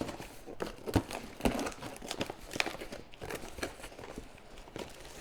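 Packaging rustling and crinkling as items are taken out of a shipping box, with irregular handling clicks and a couple of knocks, the loudest about a second in.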